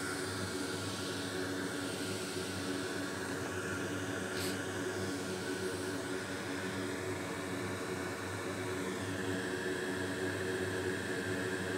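Steady whirring hum and hiss of a bench blower fan running, with one brief soft click about four seconds in.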